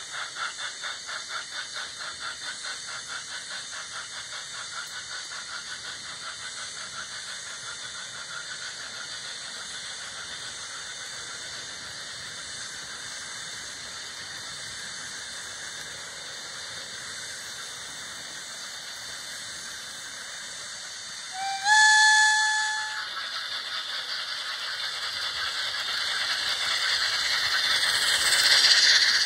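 Sound-equipped HO scale REE Models SNCF Mikado steam locomotive running with its passenger train: steady steam hiss with rhythmic chuffing that fades over the first few seconds, then one whistle blast about three-quarters of the way in lasting a second and a half. The hiss and chuffing swell as the locomotive passes close near the end.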